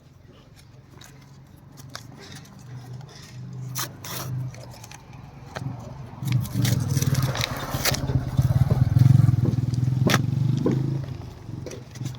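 Packaging being handled and opened in a perfume unboxing: scattered clicks, scrapes and crinkles over a steady low hum that grows louder towards the middle.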